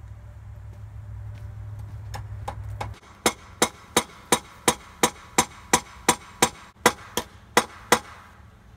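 A hammer striking repeatedly at a wooden stair stringer: about fourteen sharp, evenly paced blows at roughly three a second, starting about three seconds in. A steady low hum comes before the blows and stops as they begin.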